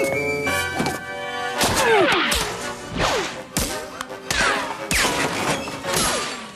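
Comedy sound effects of a ball ricocheting around a room: a rapid string of thuds and smacks, many followed by a falling whistle-like glide, with a few stepped musical notes in the first second.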